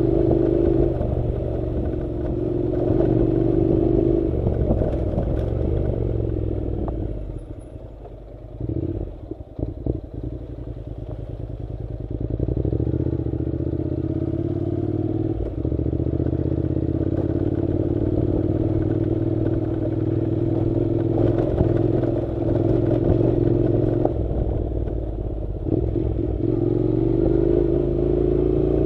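Honda NC700 motorcycle's 670 cc parallel-twin engine running steadily while riding a dirt track, with clatter from the bike over the rough ground. About eight seconds in the engine eases off and goes quieter for a few seconds, then picks up again.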